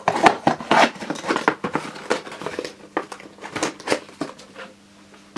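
A plastic bowl being slid into its cardboard box and the box closed by hand: a quick run of scrapes, rustles and light knocks of plastic against cardboard, dying away about a second before the end.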